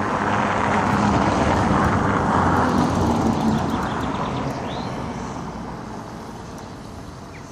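Engine noise of a passing motor vehicle: a steady low hum and rush, loudest in the first few seconds, then fading away.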